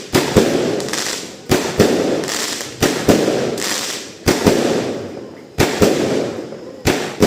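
A 16-shot consumer fireworks cake firing shot after shot: six pairs of sharp bangs, the two in each pair about a third of a second apart, a new pair every second and a bit, each followed by a fading rush of noise.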